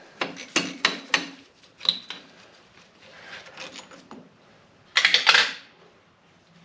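Metal tools and tractor parts being handled: several sharp clinks, a short ringing ping about two seconds in, and a louder clattering rattle about five seconds in.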